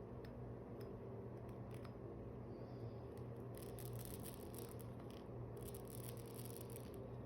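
Faint clicks and light rustling of suturing instruments and thread being worked, over a steady low hum.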